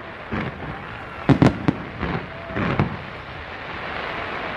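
Fireworks display going off: a quick cluster of sharp bangs about a second in, with a few scattered pops before and after over a steady hiss.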